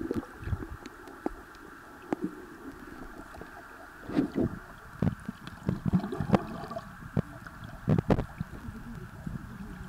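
Shallow seawater sloshing and gurgling around someone standing and wading in it, with irregular small splashes and knocks every second or so. The louder ones come about four, six and eight seconds in.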